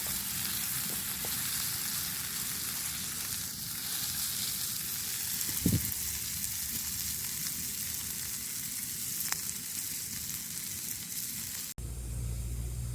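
Food sizzling and frying in a pan over the fire, a steady hiss with a few light clicks and one louder knock about halfway through. Near the end it cuts abruptly to a low, steady machine drone.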